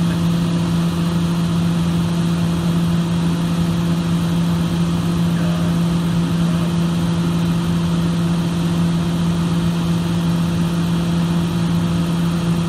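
Excavator engine running at a steady speed close by, a constant low hum that does not rise or fall.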